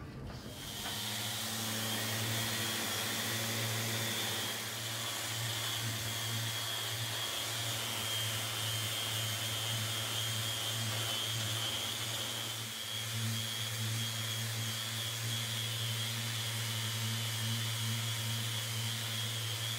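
150 mm orbital sander with a 120-grit Norton Blaze disc sanding a timber board, run with dust extraction drawing through its hose. It is a steady motor hum with a high whine over a hiss of abrasive and air.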